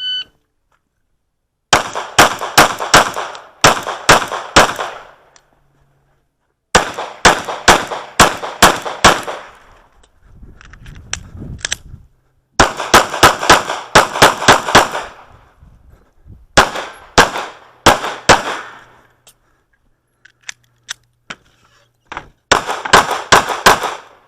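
A shot timer beeps once, then a Sig P365 9mm pistol fires several strings of rapid shots, each string a handful of quick shots, with short pauses between them.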